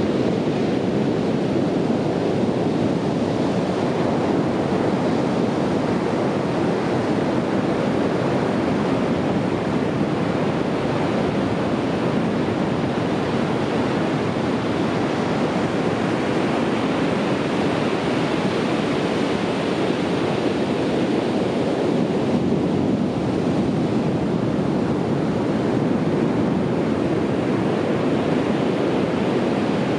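Ocean waves washing on a beach: a steady, unbroken rush of surf that swells and eases only slightly.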